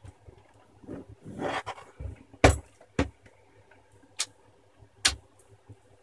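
Handling noises of a loose laptop LCD panel being lifted out of its plastic lid: a short scraping rustle, then a few sharp knocks and clicks of plastic and metal, the loudest about two and a half and five seconds in.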